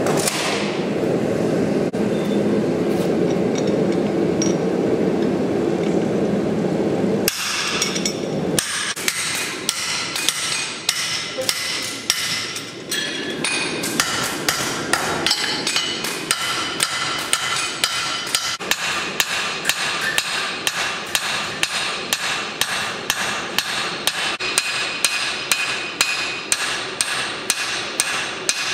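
Blacksmith's hand hammer striking red-hot steel held in tongs on an anvil, forging a javelin head, in a steady rhythm of about two blows a second with a ringing edge. For the first seven seconds or so a steady rushing noise comes before the hammering starts.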